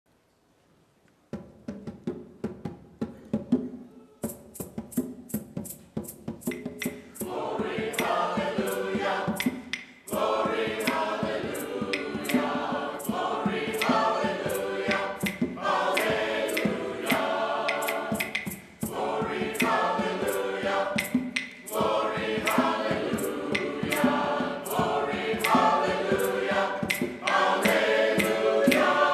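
Church choir singing a cappella in harmony. Low voices and a crisp, steady beat start about a second in, and the full choir comes in around seven seconds.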